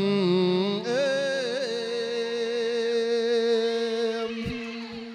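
A Buddhist monk's voice in the melodic Isan sermon style (thet lae), singing a long drawn-out, wavering phrase with no clear words. About two seconds in he settles on one long held note.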